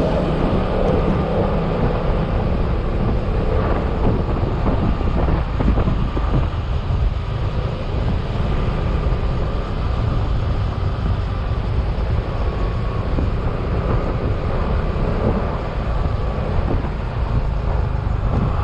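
Yamaha XMAX scooter's single-cylinder engine running steadily while riding at speed, under heavy wind and road noise.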